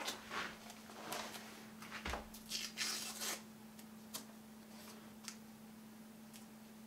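Soft rustling and light clicks of clothing and small float-making materials (wooden stems, tape) being handled at a table as a man settles in, busiest in the first few seconds and then only occasional small clicks, over a steady low hum.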